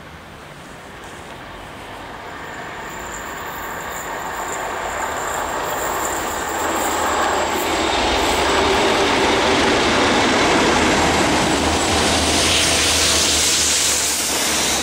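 Class 37 diesel locomotive 37601, with its English Electric V12 engine, leads a rail head treatment train on an approach and pass-by. Engine and rail noise grow steadily louder over the first half and stay loud as the locomotive comes close. A thin high whine is heard for a few seconds in the first half.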